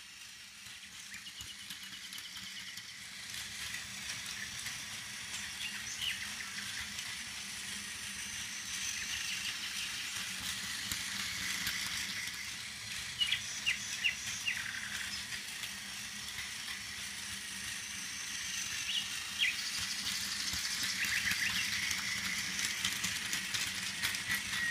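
Motorized toy Thomas the Tank Engine running on plastic track: a steady buzzing whine from its small electric motor and plastic gears as it pulls a train of six cargo cars, with a few sharp clicks from the wheels and couplings passing over track joints.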